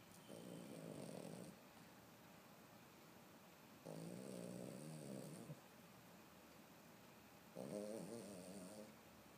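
A sleeping pet snoring: three slow snores about three and a half seconds apart, each lasting over a second.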